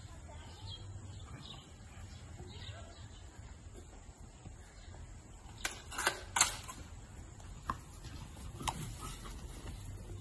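Outdoor background with a steady low hum and faint bird chirps, broken about six seconds in by a quick cluster of short, sharp sounds, with two more single ones a little later.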